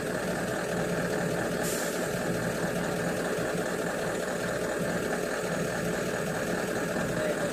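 A steady motor drone, even in level throughout, with a brief hiss about two seconds in.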